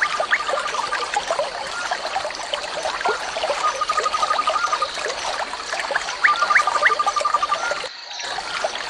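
Javan kingfisher calling: a fast, even run of same-pitched notes about a second long, given three times, near the start, in the middle and near the end. Behind it, many short chirps and a steady high whine.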